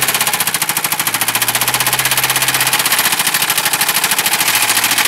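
Mercedes 220D four-cylinder diesel engine running with a loud, rapid, rhythmic rod knock, the sign of a worn connecting-rod bearing after the engine was run low on motor oil. The knocking cuts off abruptly at the very end.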